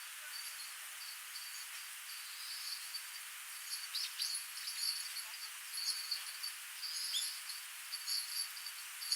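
Small stream running with a steady hiss, under rapid, repeated high-pitched chirping trills, with a few short falling bird chirps about four and seven seconds in.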